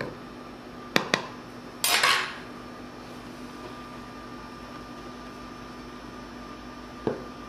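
Kitchenware clinking as a measuring cup of flour is levelled with a metal knife and tipped into a mixing bowl: two sharp clicks about a second in, a brief scraping clatter just after, and one knock near the end.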